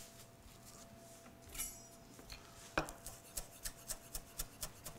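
A chef's knife chopping fresh herbs on a wooden butcher-block board: short, even knocks about four a second, starting a little over halfway in after a brief rustle.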